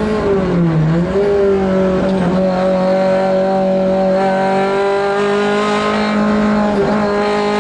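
Ford Escort Mk2 Group 2 rally car's four-cylinder engine heard from inside the cabin on a hillclimb run. The engine note drops sharply as the car brakes hard for a bend, picks back up about a second in, and then holds a steady note through the turn, climbing slightly near the end.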